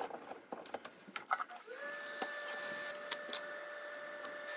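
A few handling clicks and knocks, then, about one and a half seconds in, a hot-air blower spins up with a short rising whine and runs steadily with a hiss of air, heating the back of a circuit board to melt the solder on a power MOSFET's legs.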